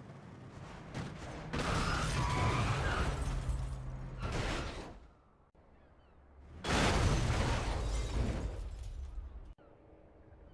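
Two dramatized car crash sound effects, each a sudden loud smash that tails off over about three seconds. A quieter steady low hum fills the gaps between them.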